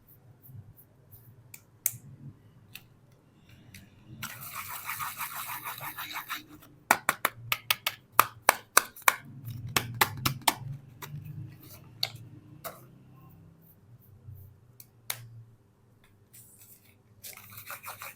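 Soap packaging being opened by hand: a rasping crinkle of the wrapper, then a quick run of sharp crackles and clicks, and another rasping rustle near the end.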